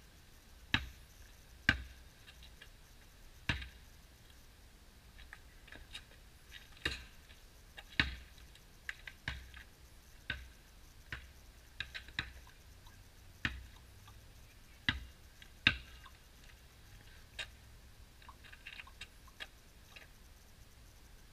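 Basketball bouncing on an asphalt driveway: about ten loud, sharp bounces at uneven intervals, with fainter taps and clicks between them.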